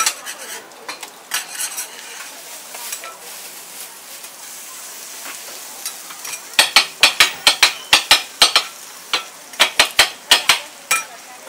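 Food sizzling on a steel griddle, with a metal spatula scraping and tapping on it. A little past halfway comes a quick run of sharp metal clacks, about five a second, as a curved blade chops a folded grilled cold noodle roll against the griddle. There is a short pause, then a second run of chops.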